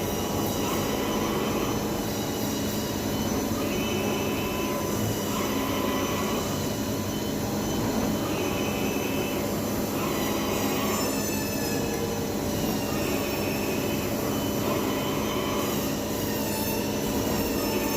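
CNC milling machine running: a steady machine hum, with high whining tones that come and go every couple of seconds, some of them gliding in pitch as the machine's motors speed up and slow down.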